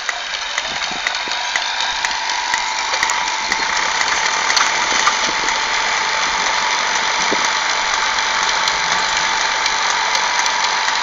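Machinery running steadily: an even, rough mechanical noise with a constant whine and a fine ticking through it, growing slightly louder over the first few seconds.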